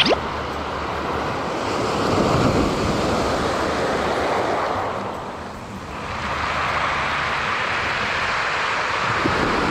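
Surf breaking and washing on the beach, swelling and easing, with wind on the microphone. A short sharp sound right at the start.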